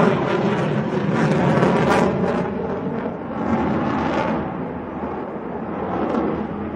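Sukhoi Su-35 fighter's twin jet engines running in afterburner during a display pass: a loud rushing jet noise with crackle, easing off after about four and a half seconds as the aircraft draws away.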